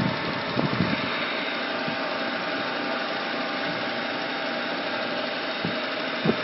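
Myford MG12 cylindrical grinder running with a steady mechanical hum. A few dull knocks come shortly after the start and again near the end.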